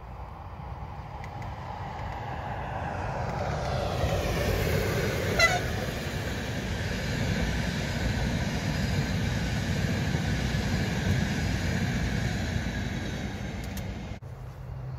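Passenger train hauled by an ÖBB Class 1216 electric locomotive running past: the rumble of wheels on rail builds up to its loudest about five seconds in, with a short sharp tone at that moment. The coaches then roll by steadily, and the sound cuts off abruptly just before the end.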